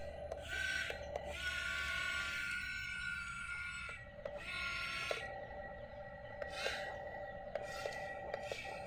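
Small electric gear motors of a toy RC excavator whining, changing pitch as different functions run, with scattered small clicks.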